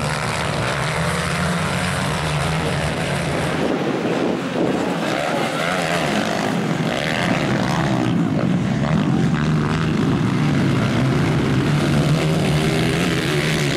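Several motocross bikes' engines droning and revving as they race round the track. The pitch rises and falls as riders open and close the throttle, with one bike revving harder about halfway through.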